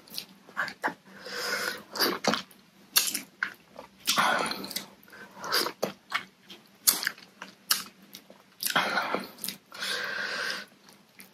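Close-up eating sounds of a person eating spicy papaya salad with rice vermicelli by hand: irregular wet chewing and sharp mouth clicks, with sucking of sauce off the fingers about halfway through.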